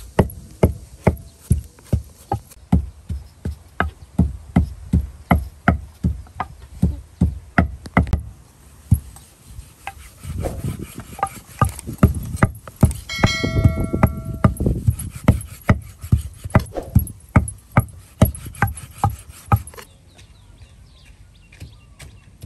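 Large kitchen knife chopping raw pork on a thick wooden chopping block, about two to three chops a second, with a brief ringing tone about thirteen seconds in. The chopping stops about twenty seconds in.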